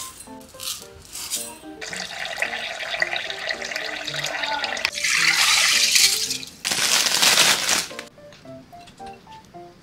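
Water running, louder and hissier over several seconds, loudest in its last second or so before it stops about eight seconds in, over soft background music.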